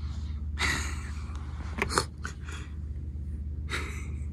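Three short breathy puffs close to the microphone, the middle one ending in a sharp click, over a steady low hum.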